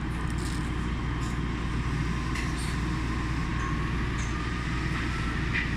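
Yui Rail monorail train running: a steady rumble with faint higher tones over it.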